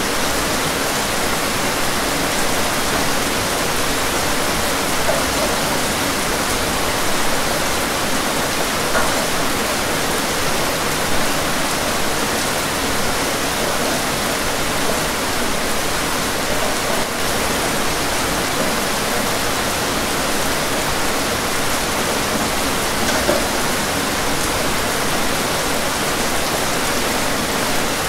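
Steady rain falling, a dense, even hiss.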